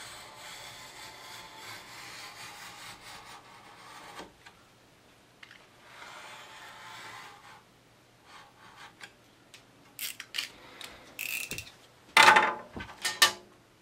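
A cutting knife drawn through foam core board along a straight edge: a long, steady scraping stroke, then a second shorter stroke about six seconds in. Near the end come a run of clicks and knocks, the loudest a clatter about twelve seconds in.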